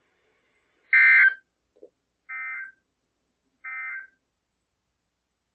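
Emergency Alert System end-of-message data signal from a NOAA Weather Radio broadcast: three short bursts of warbling digital tones (the SAME "NNNN" code), marking the close of the weekly test. The first burst, about a second in, is louder than the two that follow.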